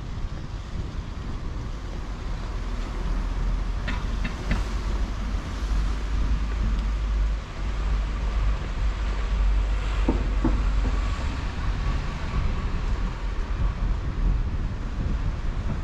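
Outdoor street noise dominated by a low, uneven rumble of wind on the microphone, with road traffic mixed in.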